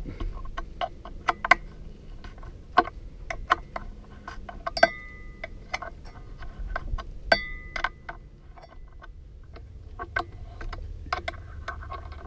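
Ratcheting wrench clicking in short runs as the bolt holding the outboard lower unit's trim tab anode is backed off, with two brief metallic rings about five and seven and a half seconds in.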